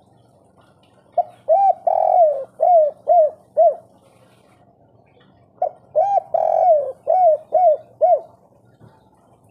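Spotted dove (tekukur) singing its 'kuk 3' song twice. Each phrase is a short opening note, a longer drawn coo, then three short coos. The two phrases come about four seconds apart.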